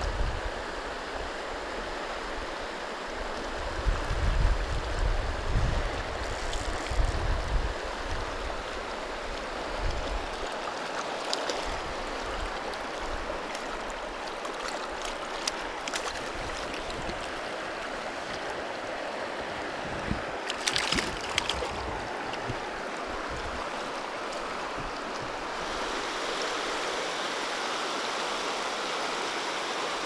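Mountain river flowing over rocks, a steady rush of water, with wind buffeting the microphone during the first ten seconds and a few brief splashes close by. The rush grows a little louder and brighter near the end.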